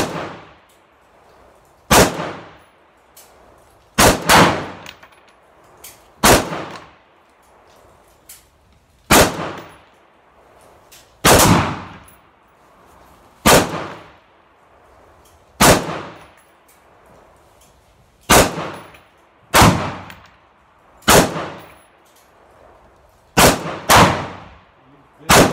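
AR-15 rifle firing slow, deliberate single shots, about fifteen, one every one to three seconds with a few quick pairs. Each shot trails off in a short ringing echo.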